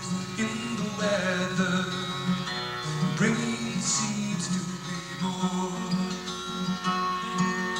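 Live acoustic music in a folk or country style: a strummed acoustic guitar together with a guitar played flat on the lap, slide-fashion.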